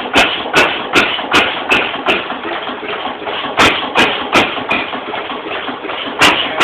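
Lister N type single-cylinder stationary engine running slowly, each firing a sharp knock about 0.4 s apart. The beats come in runs of four to six with pauses of about a second and a half between the runs.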